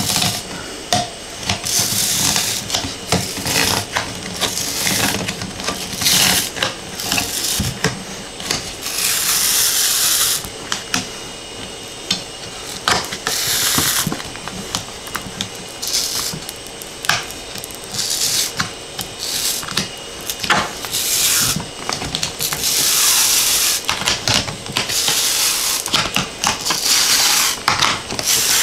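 Adhesive build-surface sheet being peeled slowly off a 3D printer's heated bed by hand: a rough hiss in several pulls of one to two seconds each, with scattered clicks and taps between them.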